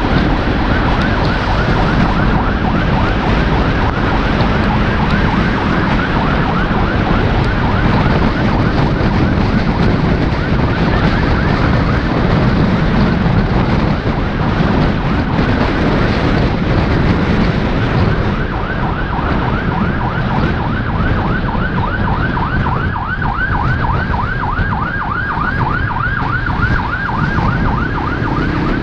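Ambulance siren yelping: a fast rising-and-falling sweep repeated several times a second, clearest near the end. Under it runs steady road and engine noise from the vehicle following behind.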